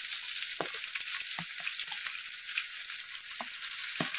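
Cumin seeds frying in hot mustard oil in a pan for a tadka. It is a steady sizzle with scattered pops and crackles.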